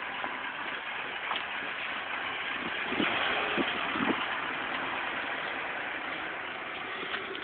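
BMW E32 730i engine running at low revs as the car reverses slowly out of a driveway and moves off, a steady running sound that grows a little louder partway through. A few dull low thumps come about three to four seconds in.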